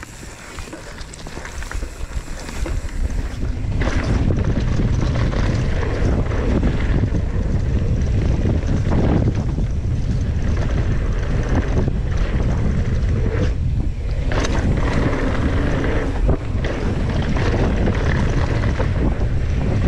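Wind buffeting the microphone and mountain-bike tyres rolling over a dirt and gravel trail. The noise grows over the first few seconds as the bike picks up speed, then holds steady, with a few brief knocks from bumps.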